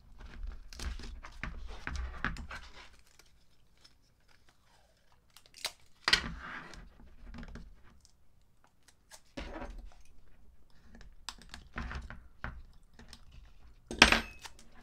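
Hands working with double-sided tape and paper on a tabletop: tape torn and paper rustled and pressed down in short irregular bursts with quiet gaps, a louder rustle about six seconds in, and one sharp click near the end, the loudest sound.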